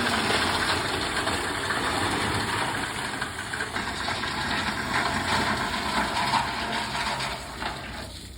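Dump truck engine running steadily with a dense rushing noise over it, dropping away near the end.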